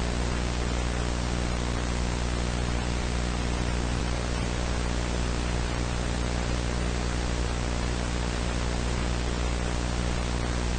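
Steady static hiss with a constant low hum beneath it, unchanging throughout, in the manner of analog-horror tape noise.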